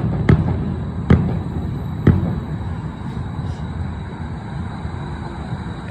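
Distant fireworks bursting: three sharp bangs in the first two seconds, over a steady low rumble of city traffic.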